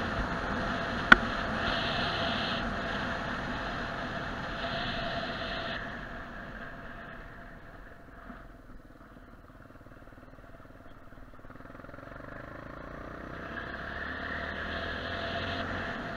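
Car driving, its engine and tyre noise dying down as it slows for a junction about halfway through, then building again as it pulls away. A single sharp click about a second in.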